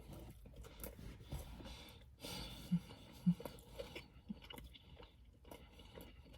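A person chewing a mouthful of a sandwich wrap close to the microphone: faint wet mouth sounds with scattered small clicks and crunches.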